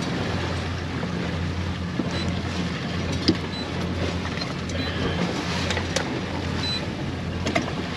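Boat engine running with a steady low hum, under wind and water noise, with a few light clicks.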